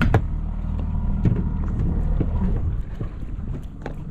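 Low rumble around a small fishing boat on open water, with scattered sharp knocks and water splashes against the hull.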